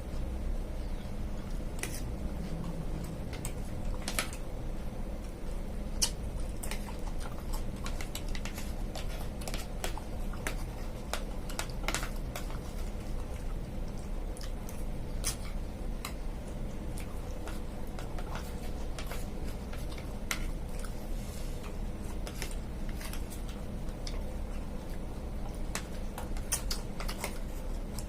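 A person eating mixed fruit with sabudana: chewing, and scattered sharp clicks of a utensil against a dish, over a steady low hum.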